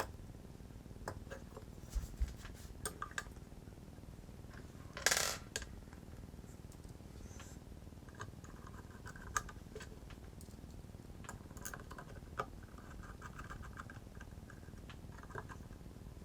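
Small metal parts (bolts and brackets) being handled, giving scattered light clinks and clicks, with one louder clatter about five seconds in.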